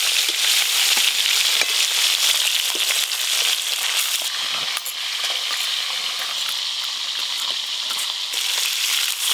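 Pieces of fish sizzling steadily in hot oil in a metal kadai, with light clicks of a metal spatula turning them.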